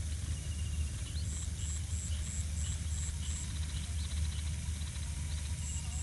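Outdoor ambience: a steady low rumble, with short high rising chirps scattered through it and a high pulsed call repeated about three times a second in runs of several.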